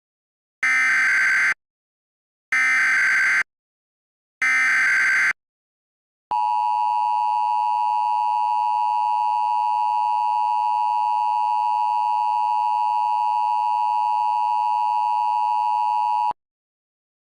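Emergency Alert System header: three short bursts of SAME digital data tones, about a second each and two seconds apart, then the steady two-tone EAS attention signal for about ten seconds, cutting off abruptly.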